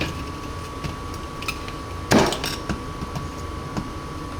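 Hand tool picking and prying at 3D-printed PLA support scaffolding: scattered small clicks and scrapes, with one louder crack about two seconds in. A steady thin high tone sounds underneath.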